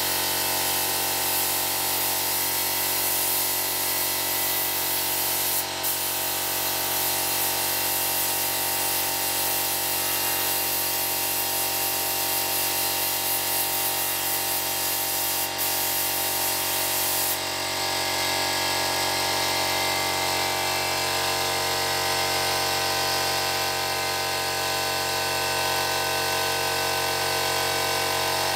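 Air compressor running steadily under the hiss of a spray gun spraying paint. The spray hiss cuts out briefly twice, then its highest part falls away about two-thirds of the way through while the compressor runs on.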